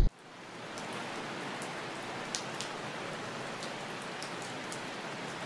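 Steady rain falling, fading in over the first second, with a few sharper drop ticks scattered through it.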